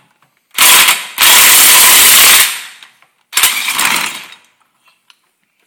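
Cordless impact gun hammering on a starter clutch removal tool to unscrew the starter clutch off the crankshaft of a 5 hp Briggs & Stratton engine. It runs in three bursts: a short one about half a second in, a longer, loud one of over a second, and a shorter one a second later.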